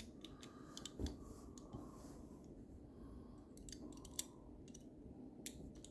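Small metal clicks and taps of lever-lock picks being fitted and worked in a lever lock, scattered and irregular, with sharper clicks about four seconds in and again near five and a half.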